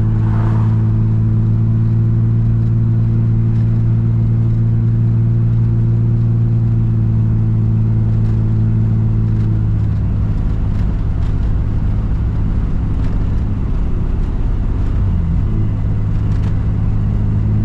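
Ford Barra straight-six in a VL Commodore running steadily at cruise, a deep even engine drone. It eases slightly about ten seconds in, and its pitch dips and comes back briefly near fifteen seconds before it settles again.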